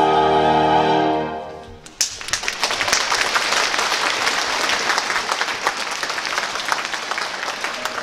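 Orchestral music with long held notes fades out, and about two seconds in it gives way to audience applause, a dense crackle of clapping that carries on to the end.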